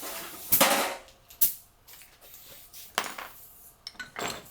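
Steel hand tools clanking on a workbench: a scraping metal clatter about half a second in, a sharp clink near a second and a half, another knock around three seconds, and a few light ticks near the end.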